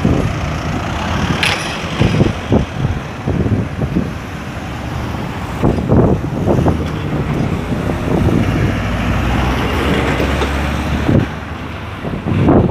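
Road traffic driving past close by: car and minibus engines and tyre noise, a steady low rumble with short louder swells as each vehicle goes by.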